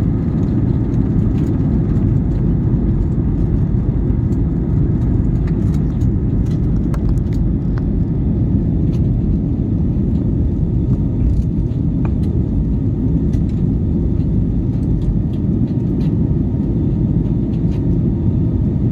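Steady low rumble of an airliner's engines and airflow heard from inside the passenger cabin at takeoff, with faint scattered clicks.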